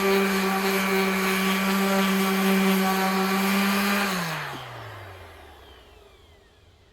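Bauer orbital sander's electric motor running at a steady hum, switched off about four seconds in and winding down with a falling pitch until it is nearly silent.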